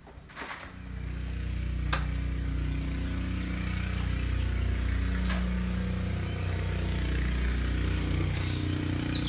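A couple of sharp clicks, then a steady, constant low mechanical hum, like a running engine or machine, that sets in about a second in and holds evenly.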